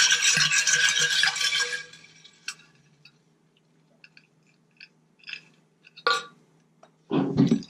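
Ice cubes rattling inside an insulated water bottle as it is shaken, stopping about two seconds in. Faint clinks follow, then a sharp tick and a short thud near the end.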